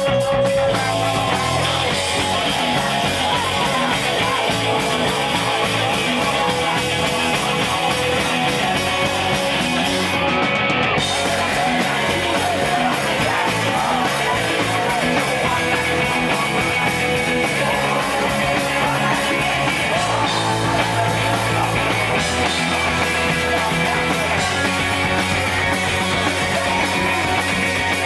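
Live rock band playing: distorted electric guitars and drums, with a male lead singer singing.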